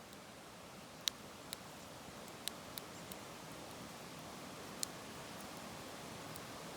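Wood fire crackling: a handful of sharp, irregular pops and snaps, the loudest about a second in, over a steady soft hiss.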